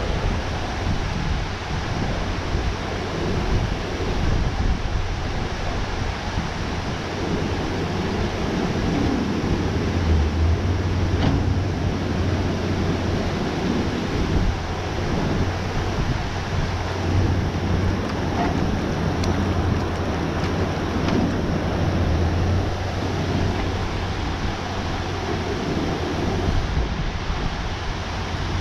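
Steady rush of water pouring through a dam spillway, with wind buffeting the microphone in low rumbles that swell and ease.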